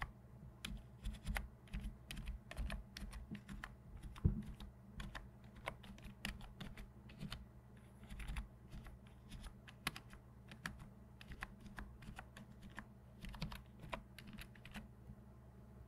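Keys of a backlit computer keyboard being pressed by fingertips in slow, irregular typing, with many separate clicks and one louder knock about four seconds in. The tapping stops shortly before the end.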